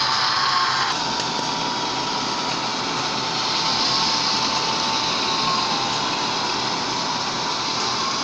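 HO-scale model diesel train running, the Soundtraxx Tsunami 2 decoder's diesel sound playing through the locomotive's small speaker mixed with wheel and drive noise: a steady rushing noise with a thin steady whine through it.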